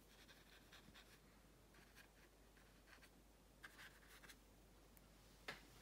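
Faint, soft swishes of a round paintbrush stroking watercolour paper, a few short strokes with a small tap near the end.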